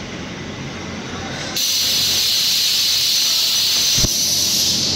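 A steady high hiss starts suddenly about a second and a half in and runs on. About four seconds in comes a single sharp click as the blown fuse is pulled out of the motorcycle's fuse box with pliers.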